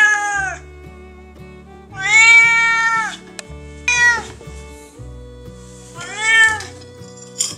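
Calico cat meowing four times in a row. The first call is dying away at the start, the second, about two seconds in, is the longest at about a second, the third is short, and the last comes about six seconds in.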